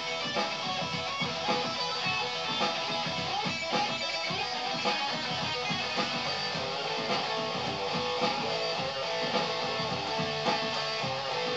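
Stratocaster-style electric guitar played in a steady strummed rhythm, with a louder accent about once a second.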